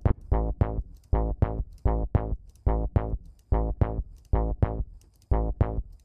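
A synth bass loop playing short notes in quick pairs and threes, each with a heavy low end that dies away fast. It is chorused and run through a FabFilter Volcano 3 filter in mid-side mode, boosting only the side (stereo) content in one frequency range.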